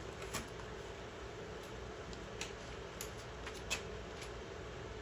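Faint steady hum with a handful of light, scattered clicks and taps.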